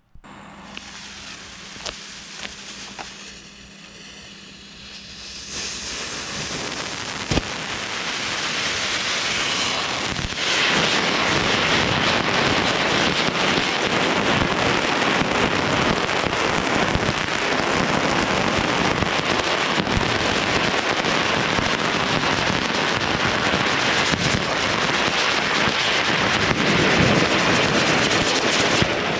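Shiny Star Magic Land fountain firework spraying sparks: a hiss that starts quietly with a few sharp pops, swells over the first ten seconds or so, then holds as a loud, steady, crackling rush.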